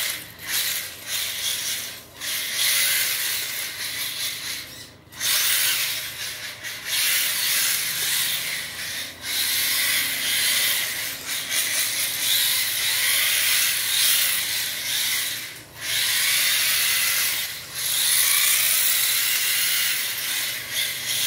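HSP 1:10 4WD brushed electric drift car driving and sliding on a tile floor: the brushed motor and drivetrain whir with a hiss of tyres on the tile, surging and easing with the throttle and dropping out briefly a few times.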